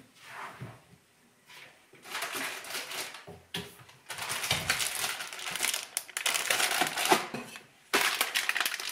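Plastic food packaging crinkling as it is handled, in bursts with short pauses: one about two seconds in, a longer stretch from about four to seven and a half seconds, and another near the end.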